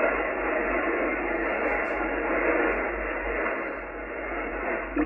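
A shortwave AM broadcast on 9855 kHz, NHK Radio Japan's French service, plays through a Yaesu FTdx10 transceiver. It sounds thin and noisy, with the highs cut off by the receiver's filter. A short click comes near the end.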